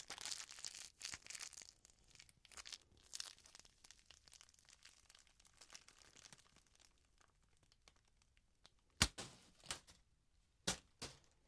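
Packaging being handled close to the microphone: rustling and crinkling, densest in the first two seconds and then sparser. Three sharp clicks come near the end, the first the loudest.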